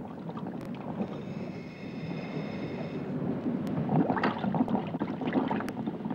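Underwater ambience: a steady watery rush with bubbling and gurgling, growing a little louder about four seconds in.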